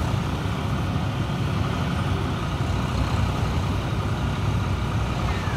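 Diesel engine of a John Deere 5405 tractor-mounted combine harvester running, a steady low rumble.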